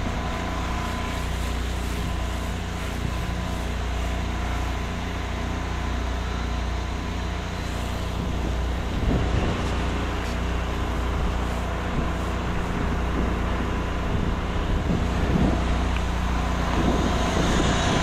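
Soft-wash rig's pump motor running steadily, with the hiss of the spray gun putting out a fan of cleaning solution at low working pressure.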